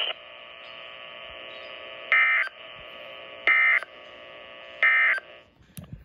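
NOAA weather radio receiver sounding the end-of-message signal that closes the weekly test: three short bursts of data tones, about a second and a half apart, over steady radio hiss. A few clicks near the end.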